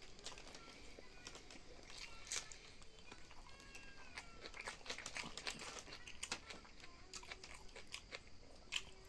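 Chewing and biting into chicken tangdi kebab (chicken drumsticks): scattered crunches and wet mouth clicks.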